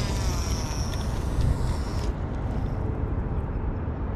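Fishing reel's spool whirring as line pays out on a cast, falling in pitch as the spool slows and dying away about two seconds in. A steady low rumble runs underneath.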